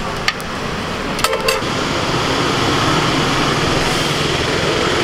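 Street traffic noise with a few sharp clicks, then from about a second and a half in a steady sizzle of potato tikkis frying in a pool of oil on a large flat griddle (tawa).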